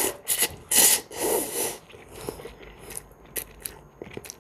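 Person slurping instant noodles from the cup with chopsticks: four loud sucking slurps in the first two seconds, then quieter chewing with small wet mouth clicks.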